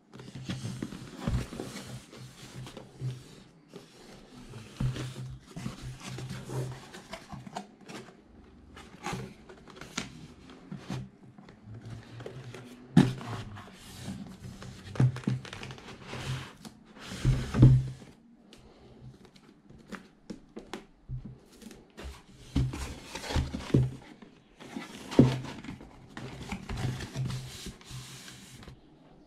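Corrugated cardboard shipping box being handled and opened: irregular scraping and rustling of cardboard, with sharp knocks and thumps now and then.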